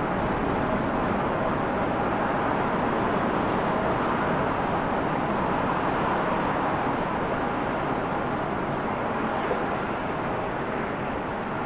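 Jet engines of a Lufthansa Airbus A320-family airliner running at low power as it rolls slowly and turns off the runway: a steady rushing drone that eases slightly near the end.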